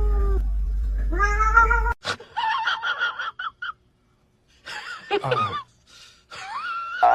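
A held tone dies away just after the start, then a cat meows several times in short calls whose pitch rises and falls, with a brief quiet gap about four seconds in.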